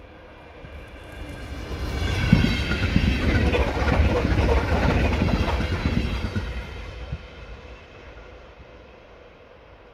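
An electric multiple-unit commuter train passing at speed over snow-covered track: a high whine as it approaches, then rumble and wheel clatter that build from about a second in, peak mid-way and fade away over the last few seconds as it recedes.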